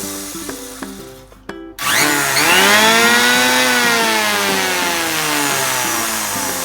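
A cordless power tool's electric motor spinning up suddenly about two seconds in, a whine that rises in pitch for a second or so and then slowly sinks as the trigger is eased, over background music.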